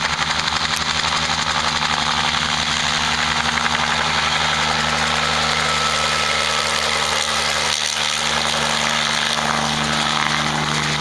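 Bell 47 G2 helicopter flying low over vines: its six-cylinder piston engine running steadily under the beat of the two-blade main rotor, the blade beat plainest in the first second or so.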